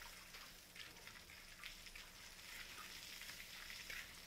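Faint hiss of water from a hose spraying onto an elephant's wet hide, with scattered small splashes and drips into the puddle beneath it.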